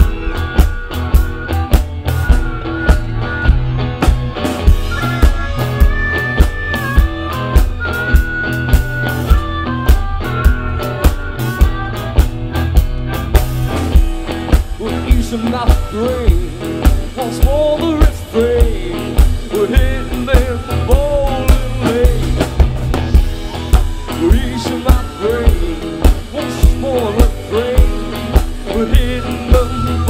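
Live blues-rock band playing with a steady drum beat, bass and electric guitar. A harmonica plays held, wailing notes over it for the first half, then the melody moves lower with bending pitches.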